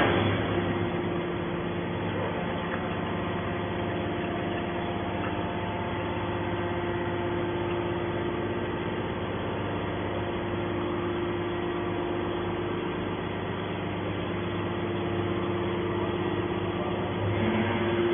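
Hydraulic metal-shavings baler running: a steady hum of its electric motor and hydraulic pump with several fixed tones, rising slightly near the end.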